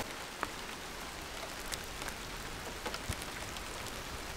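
Light rain falling: a steady hiss of drops with a few sharper single drop hits scattered through it.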